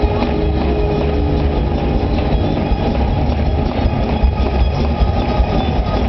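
A congregation clapping and shouting over a loud church band during praise, recorded as a dense, distorted wash with a heavy low rumble.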